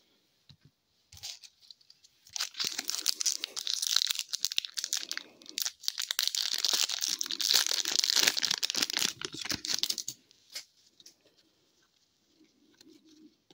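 Wrapper of an Upper Deck hockey card pack being torn open and crinkled, a dense crackling that starts about two seconds in, pauses briefly about halfway, and stops near ten seconds.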